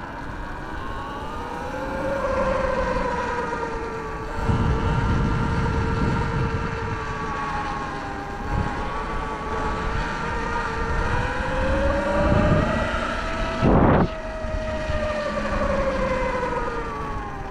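Sur-Ron electric dirt bike's motor and belt drive whining while riding, the pitch slowly rising and falling with speed, over wind rumble on the microphone, with a short loud gust of wind about 14 seconds in. The belt sounds louder than the rider is used to, and he wonders whether dirt and water buildup in it is the cause.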